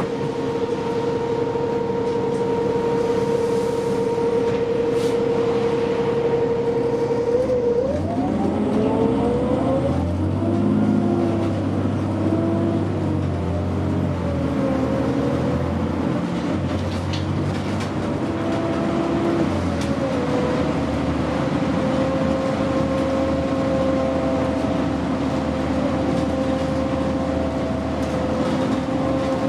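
Cabin sound of a 2009 New Flyer D60LFR articulated diesel bus. A steady whine holds at first; about eight seconds in, the diesel engine pulls harder with a rising whine as the bus accelerates. After about twenty seconds it settles back to a steady running whine.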